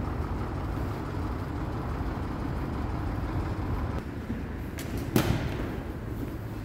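Steady low rumble of city street traffic. A single sharp knock about five seconds in.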